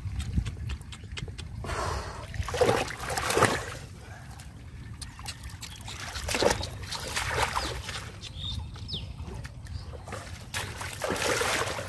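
Feet wading through shallow muddy water among water hyacinth, sloshing and splashing irregularly, with a few louder splashes.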